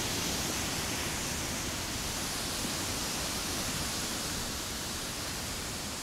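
Steady rush of a rocky mountain stream's rapids and small cascades, an even hiss with no change in level.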